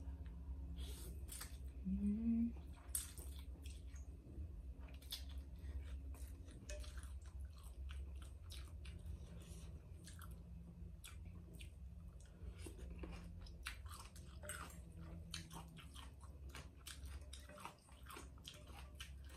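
A person chewing and eating rice noodles in broth, close to the microphone: many short wet mouth clicks and smacks throughout, with a brief voiced hum about two seconds in.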